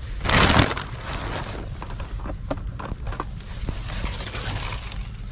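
A plastic bag rustling briefly and loudly about half a second in, then scattered small clicks and taps of a plastic tube trap and its wire fastening being handled, over a low steady rumble.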